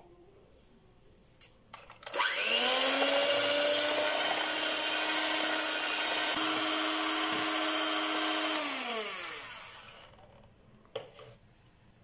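Electric hand mixer switched on about two seconds in, its motor whine rising to speed and running steadily as the beaters whisk egg yolks into creamed butter and sugar, then winding down in pitch and stopping near the end.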